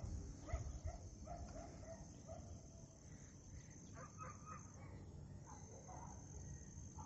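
Faint outdoor ambience: insects keep up a steady high-pitched drone, with scattered short bird calls in the distance.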